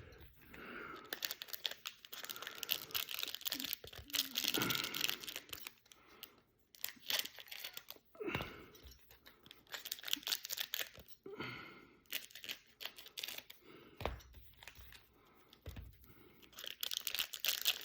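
Trading-card pack wrappers being cut open and handled: irregular crinkling and tearing bursts with clicks, broken by short pauses.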